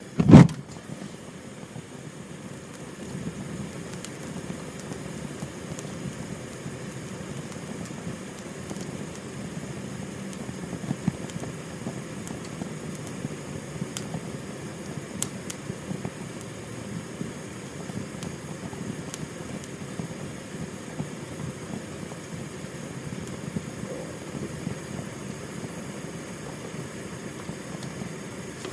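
Gas flame burning with a steady low rush, with a sudden loud burst right at the start and a few faint clicks scattered through.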